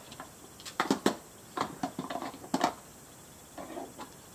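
Light clicks and knocks of plastic puzzle pieces from a Trixie Poker Box 2 as a chihuahua noses and paws at them, several sharp taps about a second in and again around the middle, with softer rustling near the end.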